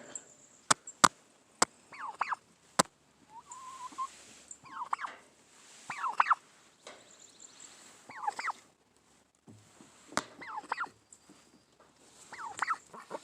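Turkeys gobbling, about six short warbling calls a second or two apart. There are several sharp clicks in the first three seconds.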